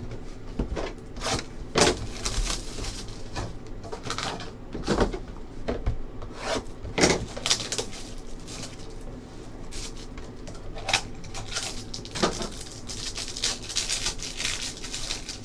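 Hands tearing open and crinkling a shiny trading card pack wrapper and shuffling the cards. The sound is a steady run of rustles and scrapes with sharper crackles now and then.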